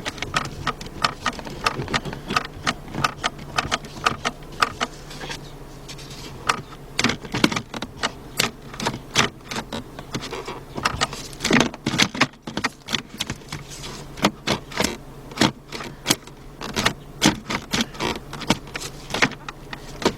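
Quick, irregular clicking and rattling of plastic and metal parts as the gear-shift mechanism in a car's centre console is worked by hand, with a short pause partway through, over a steady low hum. The shifter is stuck in park: its shift-lock release is not letting go.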